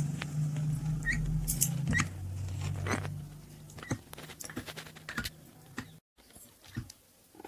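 Small petrol engine running, then dying away about three seconds in, followed by scattered light clicks and taps.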